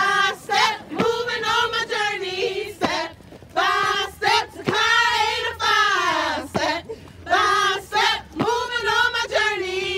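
A woman singing a probate chant in a high voice, holding short notes with sliding pitch between brief pauses.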